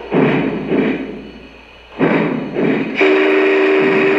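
Lionel Vision Line Union Pacific Challenger O-gauge model's Legacy RailSounds: four heavy steam chuffs in two pairs. About three seconds in, a steam whistle starts sounding steadily on two tones.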